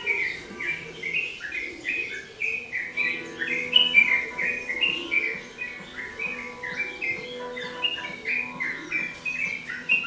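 Yellow-vented bulbul singing a continuous run of short chirping notes, about three a second, each note dipping slightly in pitch.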